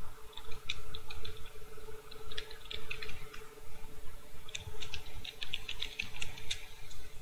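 Computer keyboard typing: three short runs of keystrokes with pauses between them, over a faint steady hum.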